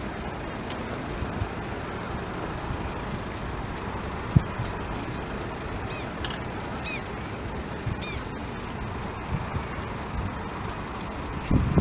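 Steady rumble of distant road traffic, with a single knock about four seconds in and a few short high chirps between six and eight seconds.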